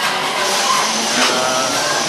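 Ghost train ride car running along its track: a loud, steady mechanical noise, with faint pitched sound effects over it.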